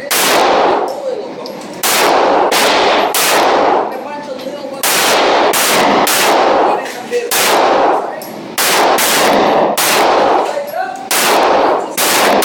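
9mm pistol firing over a dozen shots at an uneven pace, singly and in quick pairs, each crack followed by heavy echo off the range walls.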